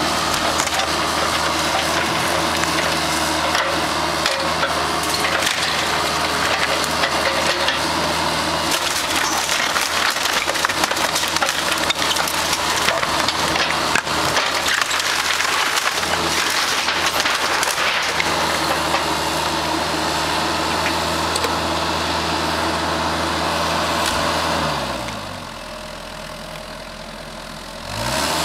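A Kubota KX91-3 mini excavator's diesel engine runs hard while its bucket tears and crushes the wooden framing and boards of a house extension, with repeated cracking and splintering of wood. About 25 seconds in, the engine winds down to idle and goes quieter, then revs back up near the end.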